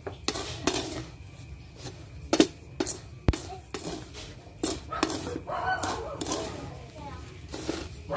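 A wooden spatula stirs and scrapes dark-roasting rice grains in a pan, making quick, irregular scraping and rattling strokes. The rice is being dry-roasted toward black for rice coffee. There is a sharp click about three seconds in.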